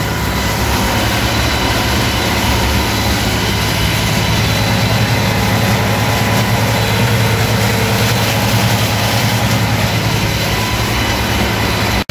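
International Harvester 1256 tractor's six-cylinder diesel engine running steadily under load, with the PTO-driven stalk shredder chopping cornstalks behind it, heard from inside the cab.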